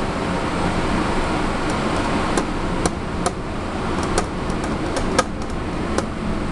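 Metal lever-press cheese breaker being worked, curd pushed through its wire grid into a pot: a few sharp metal clicks and clacks, mostly in the second half, the loudest about five seconds in, over a steady background hum.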